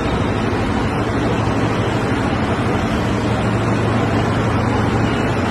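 Komatsu 980E diesel-electric mining haul truck running as it drives slowly: a steady low engine hum under a dense, even rushing noise.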